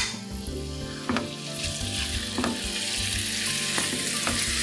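Cubes of raw pork and lamb sizzling in hot olive oil in a paella pan as they start to brown, the sizzle growing louder after the first second or so. A wooden spoon stirring the meat gives a few light clicks against the pan.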